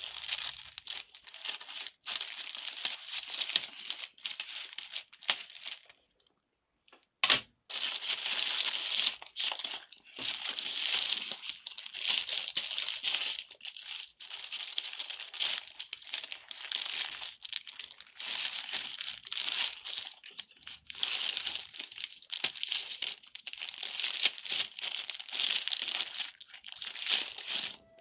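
Thin black plastic mailer bag crinkling and tearing as it is cut with scissors and pulled open by hand, in near-continuous rustling. A short pause about six seconds in is broken by one sharp click.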